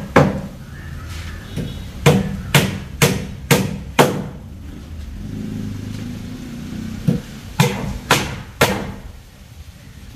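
Claw hammer driving nails into wooden planks: one blow at the start, a run of five sharp blows about half a second apart around two to four seconds in, then four more at the same pace near the end.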